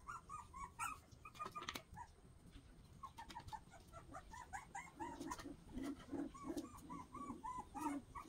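Young puppies, about 25 days old, whimpering and squeaking in short, high, repeated calls, several a second. Lower-pitched whines join in about halfway through, with light clicks here and there.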